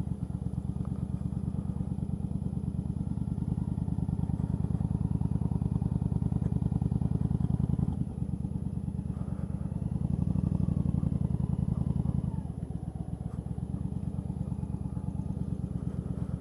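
Yamaha V-Star 1100 Custom's air-cooled V-twin running at low speed with a steady pulsing exhaust. The throttle opens up a little twice, from about three seconds in and again around ten seconds, then eases back.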